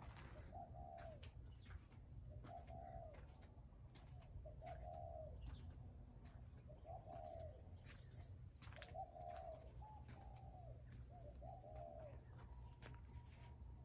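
A dove cooing softly, repeating the same short low-pitched phrase about every two seconds, over a faint low outdoor hum.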